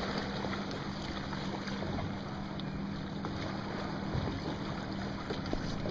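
Electric trolling motor humming steadily under a wash of wind and water noise, with a few faint ticks.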